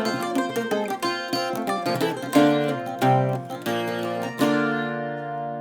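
Irish bouzouki and mandolin playing the closing instrumental bars of the ballad: quick picked notes, then a last chord struck about four and a half seconds in and left ringing as it fades.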